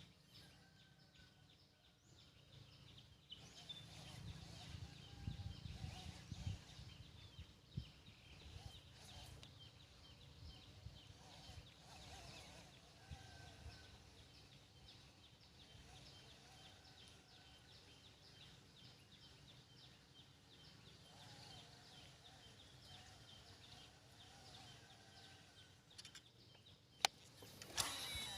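Quiet outdoor ambience with faint bird calls, short chirps scattered throughout. A low rumble with a few knocks comes about four to eight seconds in.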